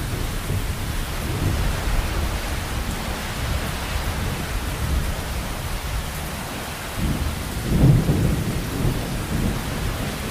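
Heavy rain falling steadily, with low rolling thunder underneath; a louder roll of thunder swells up about three-quarters of the way through.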